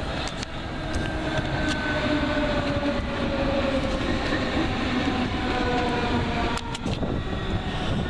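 Deutsche Bahn Class 425 electric multiple unit running past, its electric traction whine sounding in several tones that slowly fall in pitch over the rumble of wheels on rail. The sound breaks off abruptly near the end.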